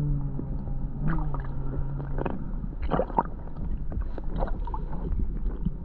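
Shallow seawater heard through an underwater camera: a low rumble of moving water with scattered splashes and knocks. A low steady hum runs for about the first two seconds, then stops.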